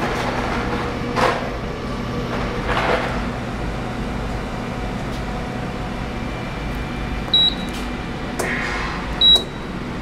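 CEM Mars microwave reactor running a heating cycle with a steady low hum. Near the end come two short high beeps from its keypad, the second louder, as the run is stopped and the unit goes back to its method menu.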